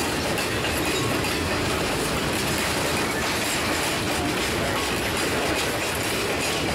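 Freight cars rolling past close by: steel wheels running on the rail in a steady, even rumble of wheel and rail noise.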